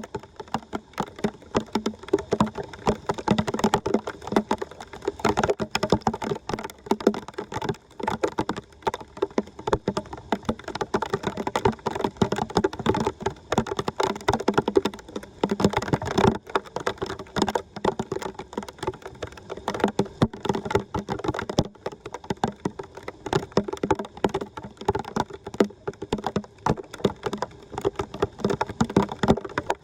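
Dense, irregular splashing and crackling of water and wet debris.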